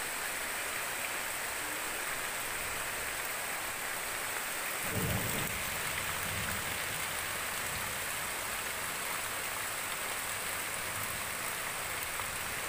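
Steady rain falling on trees and wet ground, with a brief low rumble about five seconds in.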